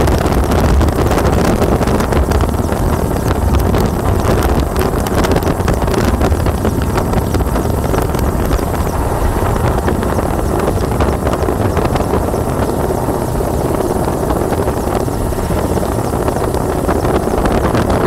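Helicopter rotor and engine running steadily, heard from inside the cabin as a loud, unbroken rumble.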